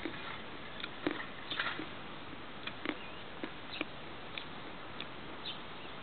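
Mouth crunching and chewing a lump of Miropolye chalk close to the microphone: irregular dry crunches, about one or two a second, over a steady outdoor hiss.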